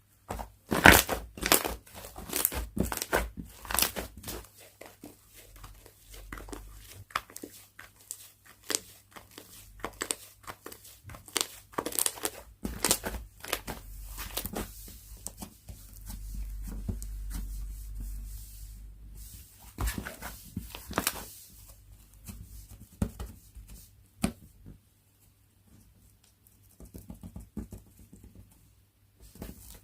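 Slime being squeezed, stretched and poked by hand: a dense run of sharp sticky clicks and pops, which thins out and goes much quieter for a few seconds near the end.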